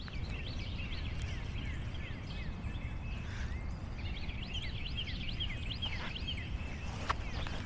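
Small birds chirping, many short falling notes in quick succession, over a steady low rumble.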